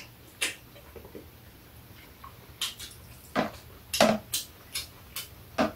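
Metal chopsticks and a spoon clicking and scraping against bowls, plastic food containers and a metal tray during a meal. It comes as a series of short, sharp clinks, scattered and more frequent in the second half.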